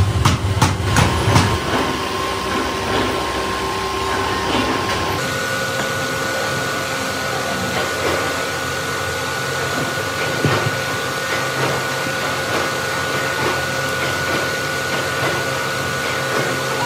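Steady roar of a forge furnace's air blower, with a few sharp metal clanks in the first second or two. About five seconds in, the pitch of the hum shifts and it runs on evenly.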